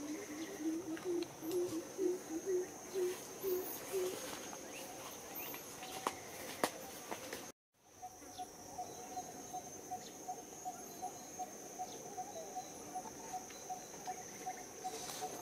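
Outdoor wildlife ambience: a steady high-pitched insect drone, with an animal's short calls repeated about three times a second, low in the first few seconds and higher-pitched after a brief dropout about halfway through.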